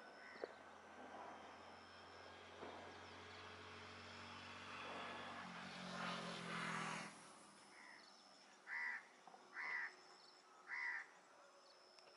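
A distant engine drone swells over several seconds and fades away, like a vehicle or aircraft passing. Three short loud calls follow, about a second apart, over faint insect chirring.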